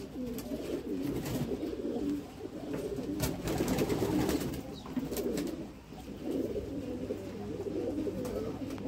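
Many domestic pigeons cooing together in a continuous, overlapping low murmur, with a few sharp clicks in between.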